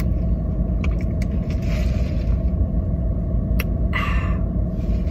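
A parked car running, heard from inside the cabin: a steady low rumble with a faint steady hum over it. A couple of short soft breathy noises stand out about two and four seconds in.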